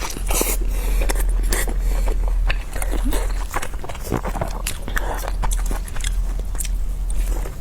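Close-miked eating of steamed dumplings: biting, chewing and wet mouth clicks and smacks, over a steady low hum.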